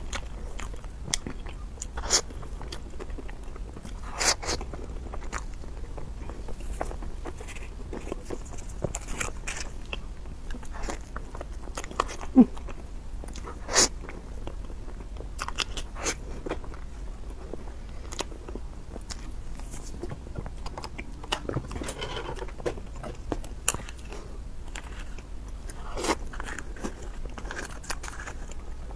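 Close-miked eating: a woman biting and chewing, with many short crunchy clicks and mouth sounds scattered throughout and a few louder bites among them.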